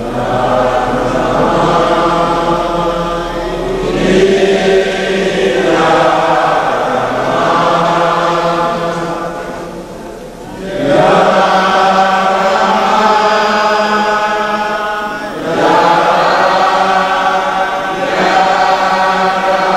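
A congregation chanting a hymn together in long held phrases, breaking off briefly about ten and fifteen seconds in.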